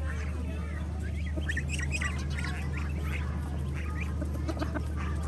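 A flock of birds calling at once: many short, overlapping calls, busiest in the middle, over a steady low hum.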